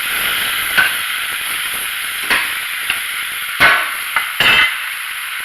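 Pork and vegetables sizzling loudly over a high flame in a frying pan, with a steady hiss and several sharp knocks of a utensil against the pan as the food is stirred and tossed; the loudest knock comes about three and a half seconds in.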